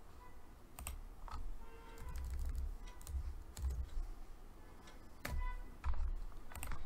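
Computer keyboard being typed on: a handful of separate keystrokes with pauses between them.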